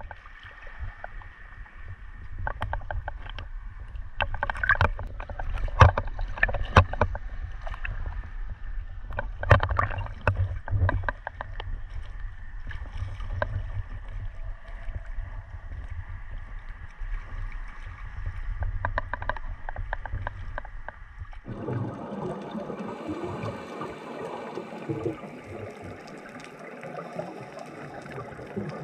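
Small waves slapping and splashing against a camera bobbing at the sea surface, over a low steady rumble. About 21 seconds in it switches abruptly to muffled underwater sound: a steady hiss with bubbling.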